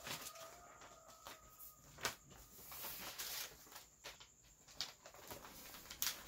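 Faint rustling and tapping of brown wrapping paper handled and pressed flat by hand, with a few sharp clicks about two, five and six seconds in.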